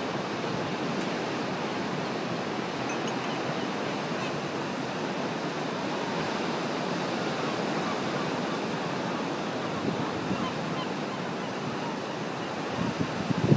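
Atlantic surf breaking on rocks in a steady, continuous wash of waves, with wind buffeting the microphone in low gusts near the end.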